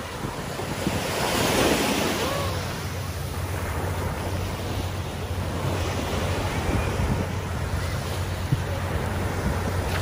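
Small waves breaking and washing up over a sandy shore, swelling about a second in, with wind rumbling on the microphone.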